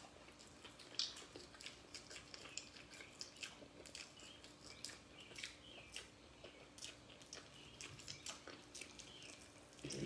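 Quiet, close chewing of bacon-wrapped chicken in barbecue sauce, with many small, irregular wet mouth clicks and smacks.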